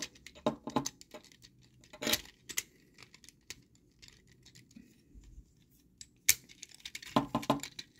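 Hard plastic toy parts clicking and tapping as a robot figure's armor pieces are handled and fitted together, with a sharp click about two seconds in, a louder one after six seconds and a quick run of clicks near the end.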